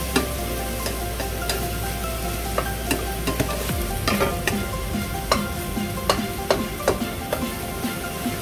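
Egg noodles sizzling in a hot stainless steel wok while a spatula stirs and tosses them, with a steady hiss and sharp clicks of the spatula against the pan that come more often in the second half.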